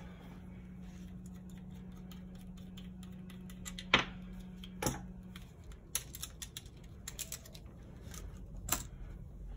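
Scattered light clicks and taps of small plastic parts and packaging being handled, with two sharper clicks about four and five seconds in and another near the end. A steady low hum runs underneath and stops about halfway.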